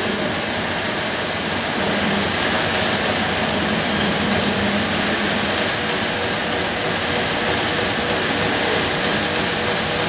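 Large band sawmill running, a steady mechanical noise with a constant hum underneath.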